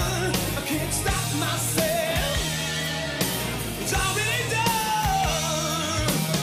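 Glam metal song: a lead voice singing over electric guitar, bass and drums.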